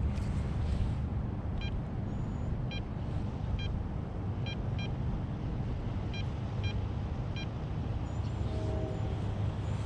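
A steady low rumble, with a series of short, high electronic beeps coming singly or in pairs for most of the stretch, and a brief lower tone near the end.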